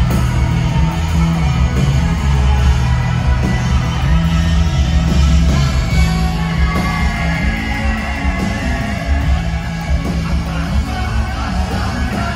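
Live rock band playing: electric guitars over a heavy bass line and drums, with a male singer singing into a microphone.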